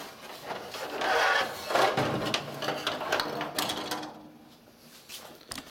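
Scraping, sliding and knocking of a plastic grille and header panel being handled and moved on a table top, loudest about a second or two in.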